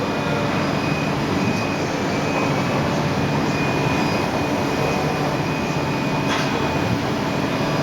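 Mikron HSM 600 U five-axis high-speed milling machine running: a steady, dense machine noise with a faint high steady tone, and one short click about six seconds in.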